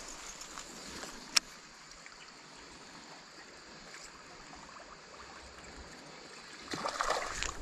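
Creek water trickling steadily, with one sharp click about a second and a half in. Near the end, louder splashing in the water starts up.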